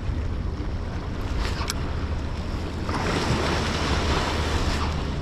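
Sea surf washing in, with one wave swelling up about three seconds in, over a steady rumble of wind on the microphone.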